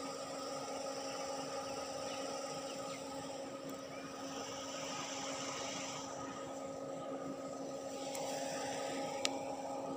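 Steady mechanical hum holding several fixed tones, with one sharp click about nine seconds in.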